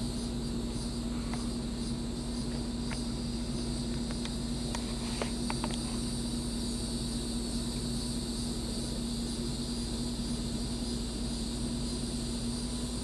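A steady high insect drone with a constant low hum under it. A few short clicks come in the first half.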